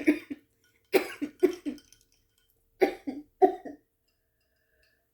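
A woman coughing in three short fits of two to four coughs each, the last ending about four seconds in. It is the lingering cough of an illness she is just getting over.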